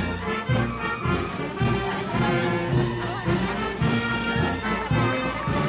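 Marching brass band playing a tune in the street, held brass notes over a steady drum beat.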